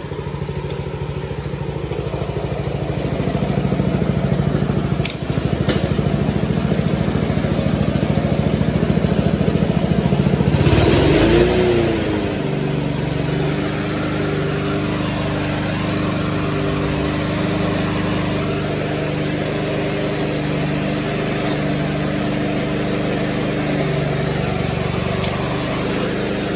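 Commercial Snapper self-propelled push mower's engine running steadily while its drive is engaged, the new drive ring now pulling without slipping. About 11 seconds in there is a short louder surge with a brief rising-then-falling whine, after which the engine settles to a slightly quieter, even run.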